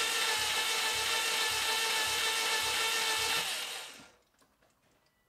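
Subaru EJ20 boxer engine being cranked over on its starter motor during a compression test: a steady high whine with a slow low pulse about twice a second, stopping about four seconds in. The compression gauge in cylinder 1 reads zero, so the cylinder holds no compression.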